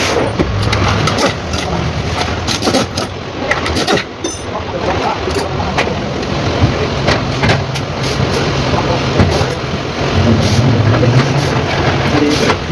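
Mitsubishi 4M40 four-cylinder diesel engine running with a steady low drone and many sharp, irregular clicks over it. The engine has a knocking problem.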